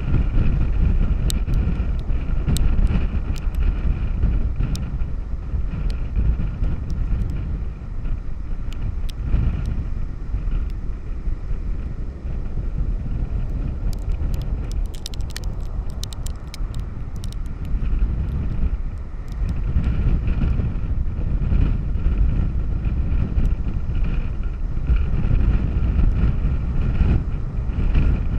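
Strong storm wind buffeting the microphone in uneven gusts, a heavy low rumble, with breaking surf under it. A spatter of small ticks comes about halfway through.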